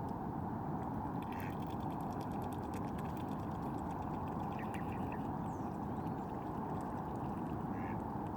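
Ducks quacking in short calls a few times, over a steady rushing background noise, with a brief patch of faint clicking early on.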